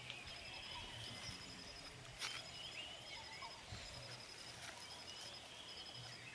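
Faint mountainside ambience with birds chirping and a high, rapid pulsed trill repeating over and over; a brief click about two seconds in.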